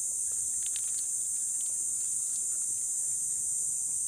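Steady high-pitched insect chorus droning without a break. A few short crisp crackles come about a second in, as the skin of a deep-fried pork knuckle is torn apart by hand.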